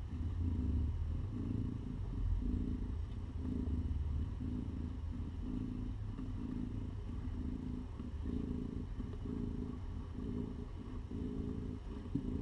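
Mother cat purring steadily while being stroked as she nurses her newborn kittens, a low rumble that swells and fades in an even rhythm with her breathing.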